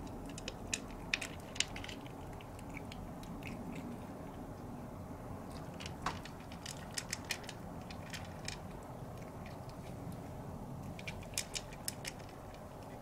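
A cat eating bonito flakes: quick clusters of small crisp clicks and crunches from its chewing, coming in three short bursts with pauses between.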